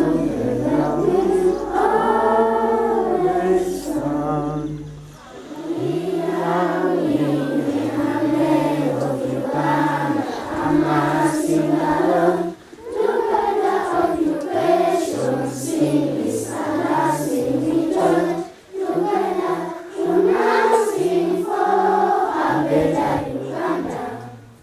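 A group of schoolchildren singing together as a choir, in phrases with short pauses between them. The singing fades out near the end.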